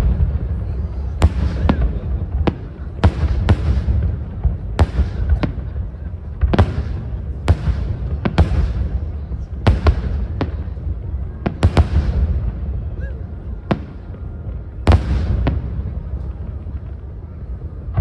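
Aerial fireworks shells bursting in a steady run of sharp bangs, roughly one every half second to a second, each trailing off, over a steady low rumble.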